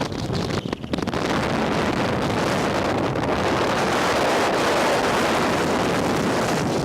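Ocean surf breaking and washing in, with wind buffeting the microphone. The wind gusts are choppy for about the first second, then the steady rush of the surf builds slightly toward the middle.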